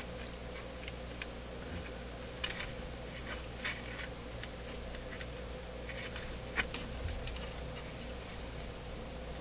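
Steady low mains hum from a powered-up Zenith 9F25 tube receiver and amplifier, with scattered light clicks and ticks throughout.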